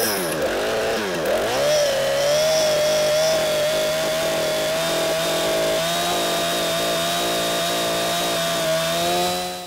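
Husqvarna two-stroke chainsaw running. Its engine pitch dips and rises in the first second or so, then holds steady, and the sound fades out at the very end.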